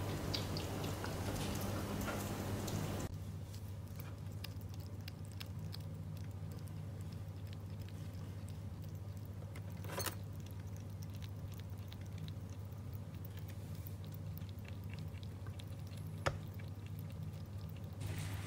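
A pet African pygmy hedgehog eating dry kibble from a steel bowl: small crunching and clicking of the food, with a couple of louder clicks, over a steady low hum. Soft music stops about three seconds in.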